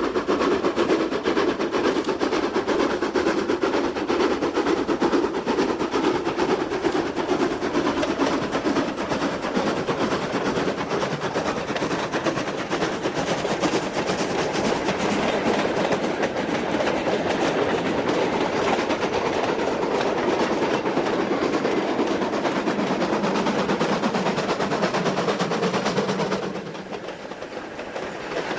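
GER N7 0-6-2 tank steam locomotive running with its train, a steady clatter of wheels on the rails. It drops away suddenly near the end.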